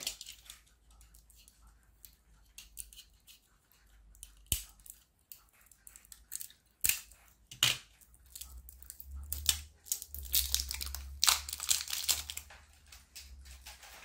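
Small metal tin of soldering-iron tip tinner being opened by hand: a few sharp clicks of the tin, then crinkling and tearing from about nine to twelve seconds in as its seal is peeled away.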